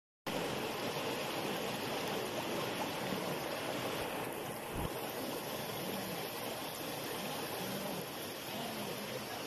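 Shallow river water rushing and splashing over boulders in small cascades, a steady even rush. Near the start it cuts out for a moment, and a soft low bump comes about five seconds in.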